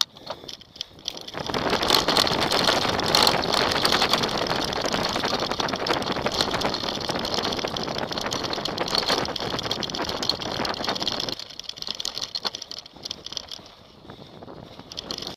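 Loud rushing and rattling from a camera mounted on a mountain bike riding fast over a rough forest trail: wind on the microphone, with many small knocks and clatters from the bike and the ground. The noise drops away suddenly after about eleven seconds.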